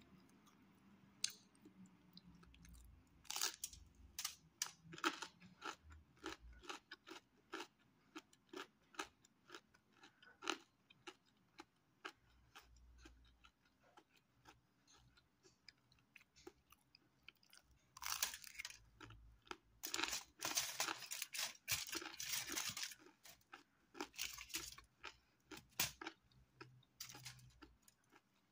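Close-up crunching and chewing of crisp, thin pizza crust: a string of sharp crunches, thickest about three seconds in and again in a long dense run near eighteen to twenty-three seconds.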